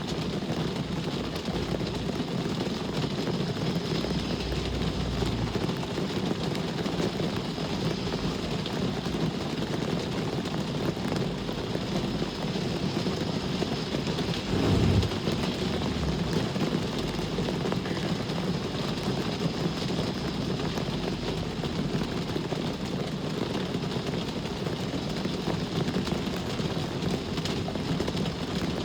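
Steady rain mixed with the hum of passing road traffic, with a brief louder low rumble about halfway through.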